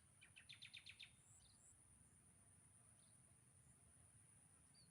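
Faint outdoor ambience: a steady high insect whine, and a short rapid chirping trill of about eight notes within the first second.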